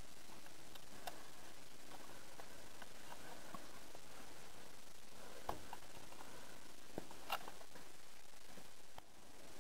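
Heavy rain, a steady muffled hiss heard through a closed window, with a few light clicks scattered through it.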